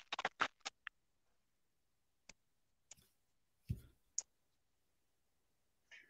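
Faint clicking: a quick run of about eight small clicks in the first second, then a few scattered single clicks, one with a soft thump.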